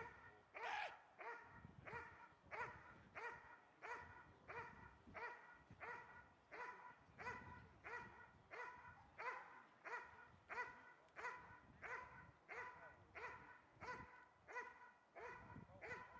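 Police-trained dog barking steadily at close quarters, about two barks a second without a break. This is the dog holding a helper at bay by barking in the KNPV stick-guarding (stokstellen) exercise.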